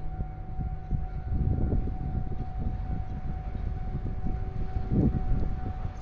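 Railway level-crossing alarm sounding one steady tone, over a loud, uneven low rumble as an EF81 electric locomotive approaches in the distance.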